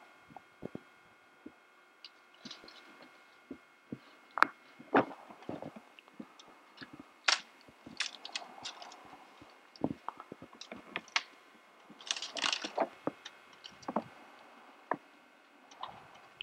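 Dry dead branches cracking and snapping as they are broken and pulled out of brush, with rustling of twigs and dead leaves. A loose, irregular string of sharp cracks, with a burst of rustling about twelve seconds in.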